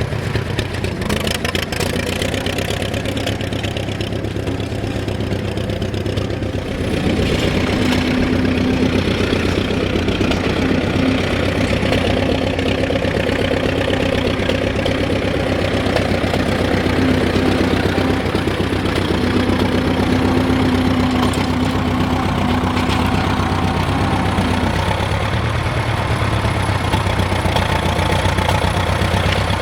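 Vintage tractor engine running steadily under load. It gets louder about a quarter of the way in, with a steady hum held for most of the rest.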